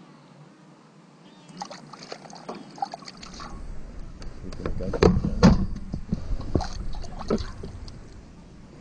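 Sharp clicks and rustles of fishing tackle and bait being handled, then a low rumble with two heavy thumps about five seconds in.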